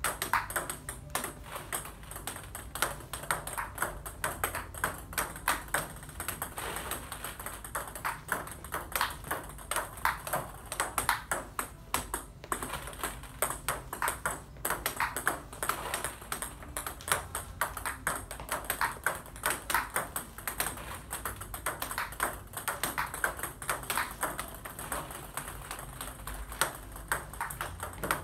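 Table tennis ball bouncing on the table and struck by a bat faced with OX (spongeless) long-pimple rubber, in a quick, uneven run of sharp ticks and pocks. These are forehand attacks and flicks against no-spin balls.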